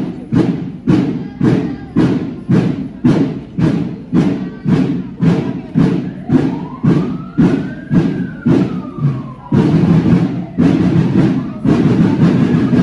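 Parade drums beating a steady marching cadence of about two strokes a second, which run together into a continuous drum roll about ten seconds in. A siren rises and falls faintly in the background partway through.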